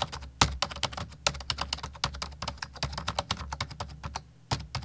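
Typing sound effect: a fast, irregular run of key clicks over a low steady hum, thinning out to a last few clicks near the end.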